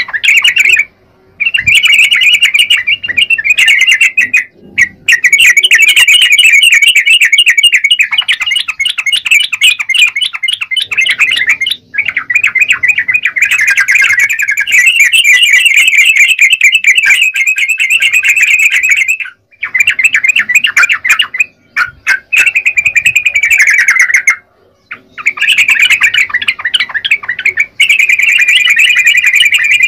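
Yellow-vented bulbul (trucukan) singing a rapid, warbling song in long bouts of several seconds, broken by brief pauses.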